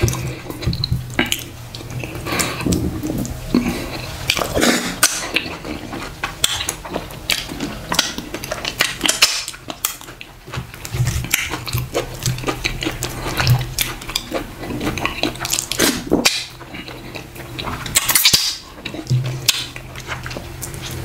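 Eating ogbono soup and fufu by hand: irregular wet smacks and clicks of fingers, food and lips, with taps of fingers and fish against the ceramic plate.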